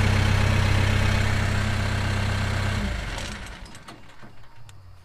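Tractor diesel engine idling, heard from the cab, then switched off about three seconds in and running down to a stop; a few faint clicks follow.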